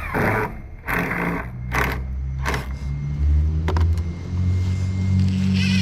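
Power drill driving a self-tapping screw into composite decking boards: the motor hums low under load, rising in pitch and holding steady from about halfway, after a few short hissing noises near the start.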